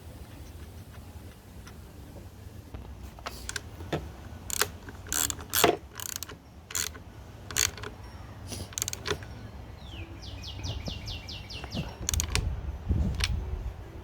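Sharp metallic clicks and clinks from hand tools at irregular intervals, with a quick run of about nine even clicks around ten to twelve seconds in, over a steady low rumble.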